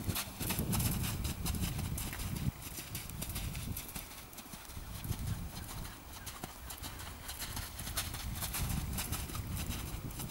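Hoofbeats of a horse circling on a long line at a trot and canter over an arena's sand footing, a quick patter of hoof strikes. A low rumble is heaviest in the first couple of seconds and again near the end.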